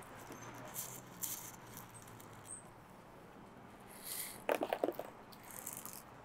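Small top-dressing pebbles rattling in a plastic scoop and trickling onto potting soil, with scattered light clicks and a louder burst of rattling about four and a half seconds in.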